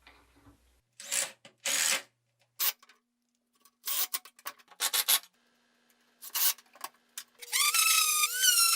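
Several short scraping, rubbing bursts. Then a cordless drill drives a screw: its whine rises and dips for about two seconds, then winds down and stops.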